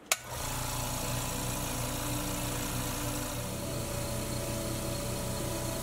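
Small oil-free portable air compressor switched on with a sharp click, its motor starting up at once and then running with a steady hum.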